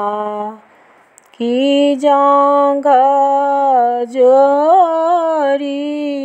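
A woman singing a Maithili upanayan (sacred-thread ceremony) folk song unaccompanied, in long held notes with small gliding ornaments. She breaks off for a breath near the start, then sings on.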